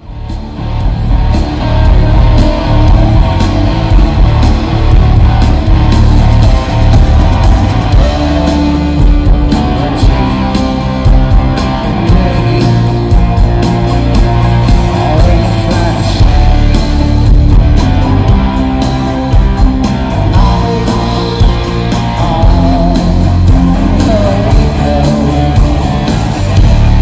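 A live rock band playing an amplified jam: electric guitars, bass, drum kit and keyboards, loud and busy throughout. It fades in over about the first second.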